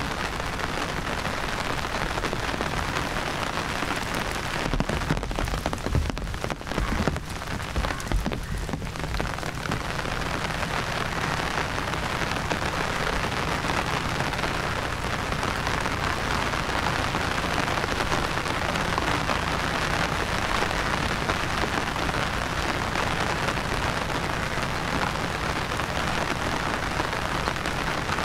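Steady rain falling, an even dense hiss. A few low bumps break in between about four and nine seconds in.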